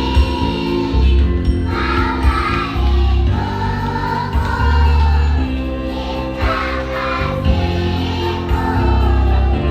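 Kindergarten children's choir singing with backing music that carries a strong bass.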